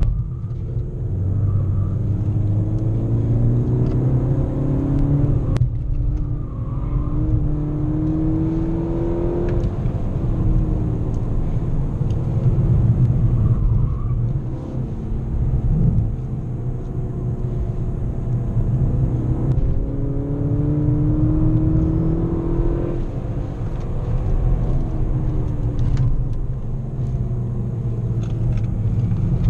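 Volkswagen GTI's turbocharged four-cylinder engine heard from inside the cabin at track speed, over a steady drone of engine and tyre noise. The engine note climbs in pitch under acceleration twice, once in the first third and again past the middle, with a brief dip about five and a half seconds in.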